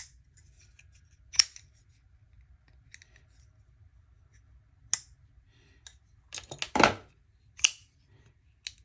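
Folding knife being flicked open and shut by hand: a series of sharp metallic clicks as the blade snaps out and locks, with a louder cluster of clicks and rattling about two-thirds of the way through.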